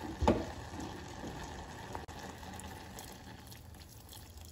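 Vegetables simmering in a steel pot, a faint steady bubbling sizzle, with one sharp knock about a quarter second in. Near the end, coconut milk starts pouring into the pot with a light splashing.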